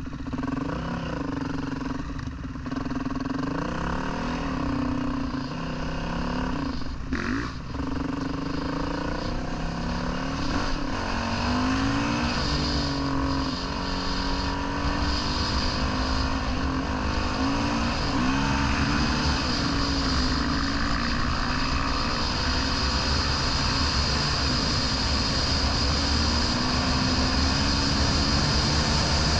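Dirt bike engine being ridden, its revs rising and falling again and again with the throttle and gear changes, over a steady rushing noise. There is a brief knock about seven seconds in.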